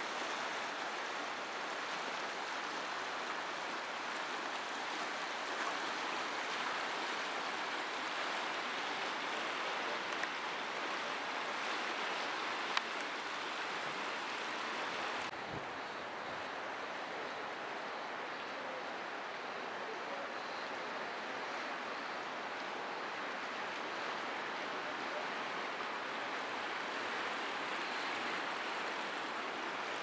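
Köprüçay River rushing through rapids, a steady rush of white water. About halfway through the sound turns duller, losing some of its hiss.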